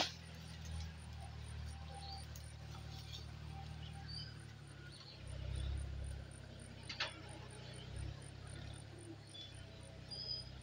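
Outdoor ambience with a steady low rumble of wind on the microphone, broken by two sharp knocks, one right at the start and one about seven seconds in, with faint short high chirps scattered through.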